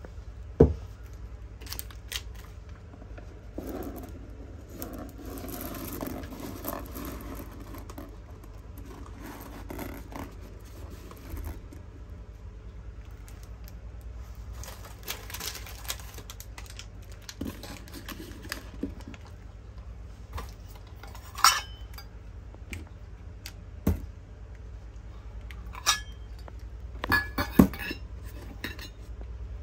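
Hard candies and their containers being handled: scattered light clinks and knocks, several in quick succession near the end, with stretches of soft rustling between.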